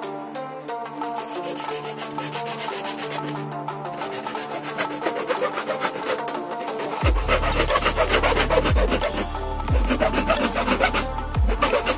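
Hacksaw cutting through a plastic jar, with quick back-and-forth rasping strokes. Background music plays underneath, and a heavy bass beat joins it a little past halfway.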